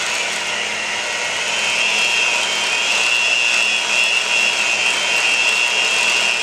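Electric hand mixer running steadily with a high motor whine, its beaters churning softened cream cheese to smooth out the lumps.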